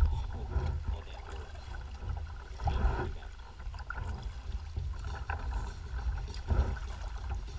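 Wind buffeting the microphone with water slapping and splashing against a kayak's hull as it moves over choppy lake water, with a couple of louder splashes.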